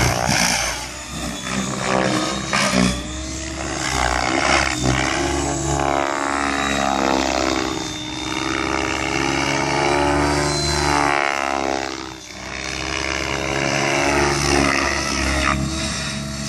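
Electric RC helicopter (Thunder Tiger Raptor G4 E720, Scorpion 4525 motor, 700-size main blades) in 3D flight: the motor's whine and the rotor blades' whir, rising and falling in pitch as it manoeuvres, with two brief dips in loudness.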